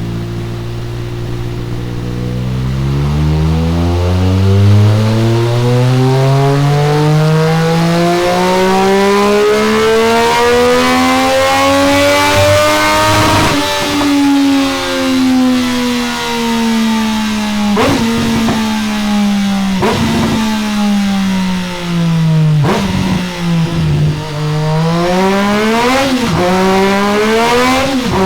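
Triumph Street Triple 765 RS inline three-cylinder engine breathing through a Delkevic X-Oval titanium exhaust on a dyno run. It runs low for a few seconds, then pulls steadily up through the revs for about ten seconds. It falls back slowly on the overrun with several short sharp cracks, and revs up again near the end.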